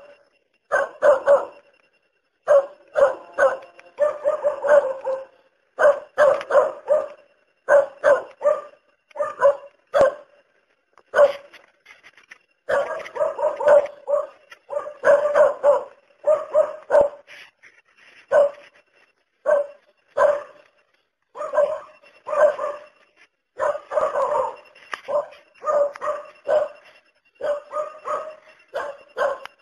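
Dog barking over and over, in single barks and quick runs of two to four with short pauses between.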